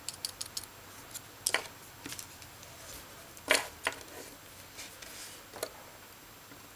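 Light clicks and taps of a small circuit board and its LED leads being handled and set down on a table, with a few sharper knocks; the loudest comes about three and a half seconds in.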